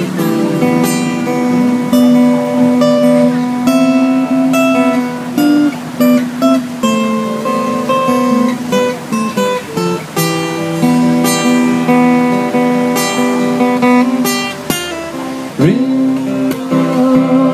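Solo acoustic guitar playing an instrumental intro, a picked melody of ringing notes over chords, with a quick upward slide near the end.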